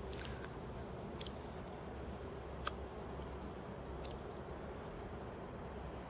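Hairy woodpecker giving short, sharp, high-pitched single-note calls, about three spaced a couple of seconds apart, with one sharp click midway.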